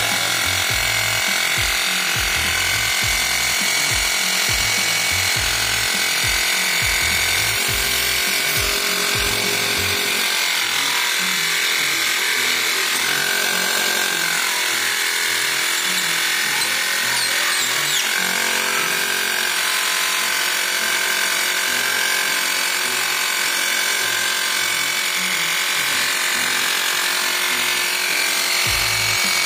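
Battery-powered mini piston air compressor running steadily with a constant motor buzz while pumping into a motorcycle tyre. The owner finds it puts almost no air in: the gauge needle hardly rises.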